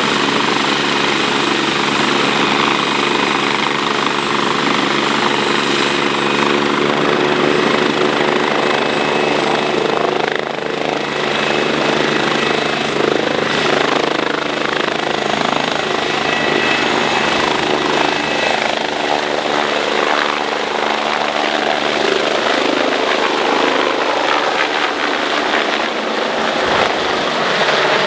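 A medical helicopter's turbine engines and main rotor running loud and steady, with a fast, even blade beat. A high turbine whine rises slowly in pitch as power comes up for lift-off.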